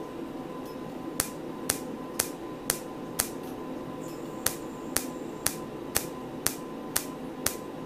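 Erbium-YAG laser handpiece firing single pulses into the skin, each a sharp snap as a bit of the pigmented epidermis is ablated, about two a second from about a second in, with a short pause in the middle. A steady hum runs underneath.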